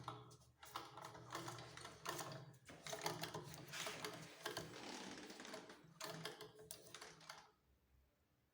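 Antique 1865 Wertheim sewing machine running, its mechanism clattering in a fast run of clicks over a low hum. It stops about seven seconds in.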